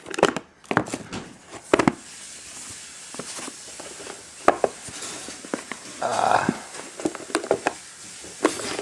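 Handling noise from cardboard trading-card boxes and their packaging: scattered light clicks and knocks, with a brief rustle about six seconds in.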